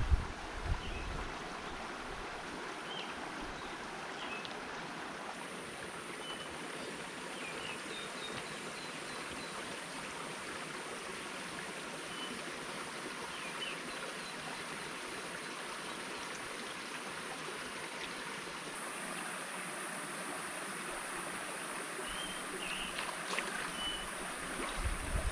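Steady rush of a rocky mountain creek flowing, with scattered short bird chirps.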